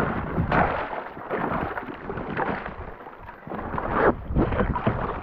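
Footsteps crunching and sloshing through thawing spring ice and slush, in irregular crunches every half second to a second.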